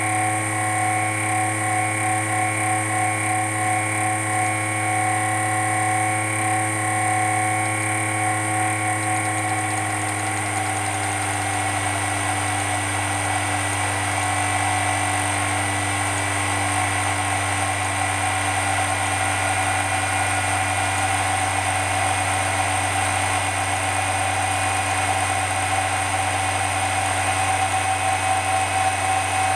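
Sapphire Radeon HD 5870 graphics card's blower (squirrel-cage) fan running with a steady whine made of several tones; its bearing is loose and the rotor jiggles from side to side. About ten seconds in, the tones drop slightly in pitch and the sound grows rougher.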